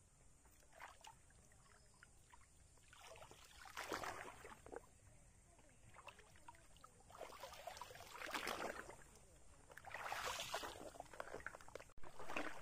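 River water splashing and sloshing in several bursts, about four, eight and ten seconds in, as a fishing net with a fish caught in it is worked in the water.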